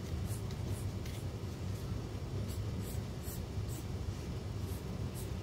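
Mechanical pencil graphite scratching on sketchbook paper in a dozen or so short, irregular strokes, over a steady low hum.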